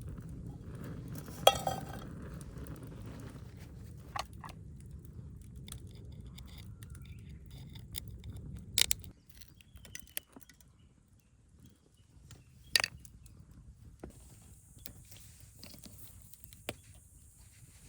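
Metal cookware and utensils clinking and tapping a few times, over a steady low rushing noise that cuts off about halfway through.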